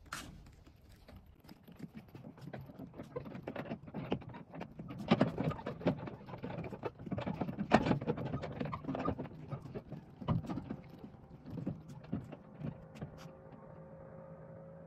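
Footsteps on the planks of a wooden dock: an uneven run of knocks that thins out near the end.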